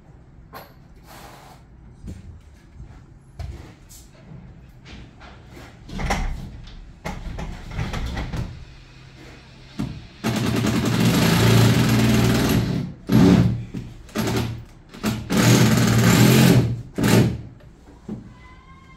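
A power tool running in bursts: one run of about three seconds about halfway through, then several shorter runs, with scattered knocks and clatter before it.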